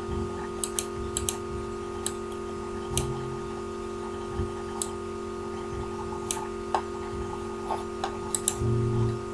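Scattered light clicks of a computer mouse and keyboard, a dozen or so at uneven intervals, over a steady electrical hum.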